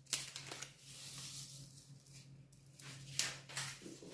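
Quiet room tone with a steady low hum, and a brief faint rustle about three seconds in.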